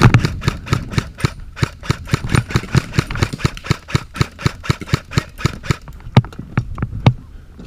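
Airsoft rifles firing in rapid, overlapping shots, several a second, thinning to a few separate shots over the last couple of seconds.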